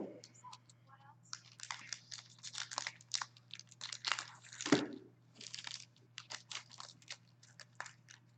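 Trading-card pack being opened by hand: the wrapper crinkling and tearing in a quick, irregular run of short crackles.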